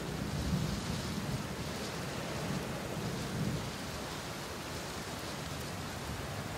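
Steady hiss of rain, with a low rumble that swells several times in the first few seconds.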